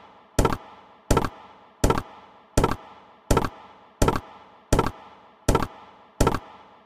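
Online video slot sound effects: a sharp knock repeating evenly about every 0.7 seconds, nine times, as the reels land during rapid autoplay spins, over a faint held musical tone.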